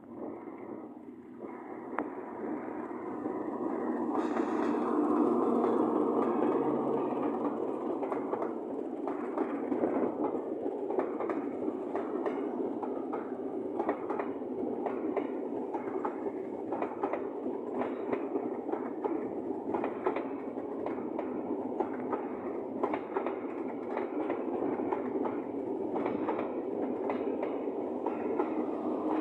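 A train passing close by, its wheels clattering over the rail joints; the sound builds over the first few seconds, then runs on steadily with a stream of sharp clicks.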